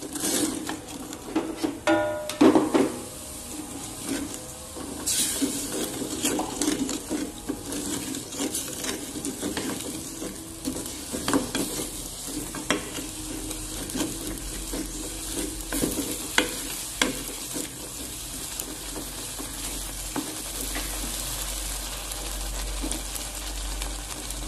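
Wooden spatula stirring and scraping a flour-thickened mushroom and water mixture in a metal pot, with irregular scrapes and knocks over a steady sizzle from the simmering pot. A few louder knocks against the pot come about two seconds in.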